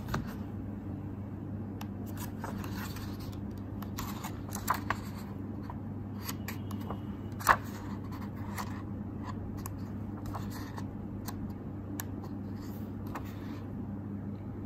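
Paper notebook pages being turned and handled by hand: scattered soft rustles and flips, with one sharper paper snap about seven and a half seconds in, over a steady low hum.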